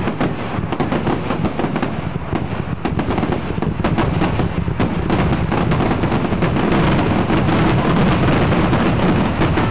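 Aerial fireworks in a dense, continuous barrage: many shell bursts and bangs overlapping with crackling, so close together that they blend into a steady rumble. The barrage grows a little louder in the second half.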